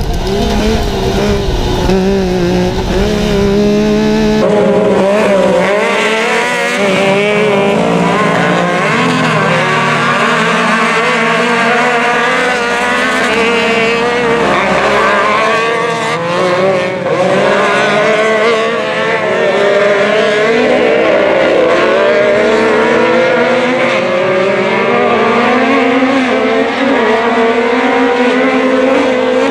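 Yamaha YXZ UTV's three-cylinder engine running hard, heard inside the cab, until a sudden change about four seconds in to several racing side-by-side engines heard from beside the track. These engines rev up and down in overlapping pitches as the cars race through the corners and straights.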